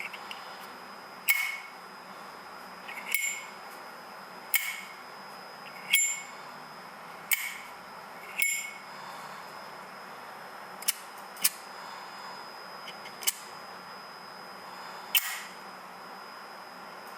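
Flip-top Zippo-style lighter lid being snapped open and clacked shut during tricks: about ten sharp metallic clicks a second or two apart. The first six have a short bright ring, and the last four are drier snaps. A faint steady high whine runs underneath.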